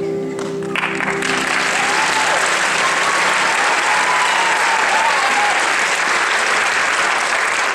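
Theatre audience applauding after a ballet dance, the clapping swelling in about a second in as the music's last chord dies away, then holding steady and dense.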